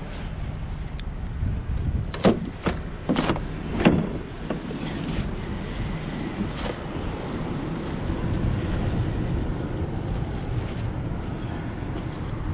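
Wind rumbling on the microphone over a steady low hum. About two seconds in come four sharp knocks, spread over about two seconds.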